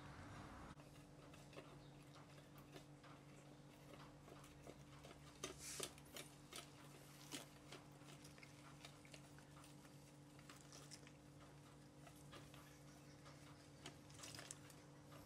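Faint scattered clicks and taps of a whisk against a glass mixing bowl as water is stirred into rice flour, over a faint steady hum.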